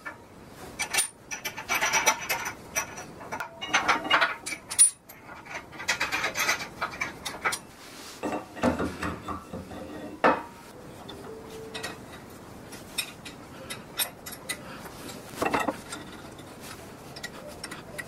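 Steel parts of a wood lathe's long tool rest being handled and fitted: the arm scraping and sliding on the lathe bed and the tool-rest post clanking into its holder. The clanks and scrapes come in irregular bursts with pauses between them.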